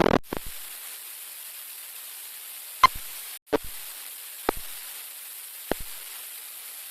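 Steady hiss with four sharp clicks about a second apart; the first is the loudest.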